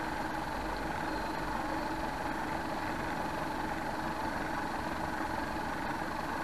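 Steady hum of a model boat's small drive motor running continuously, picked up by a camera mounted on the boat itself, with a constant whine over it.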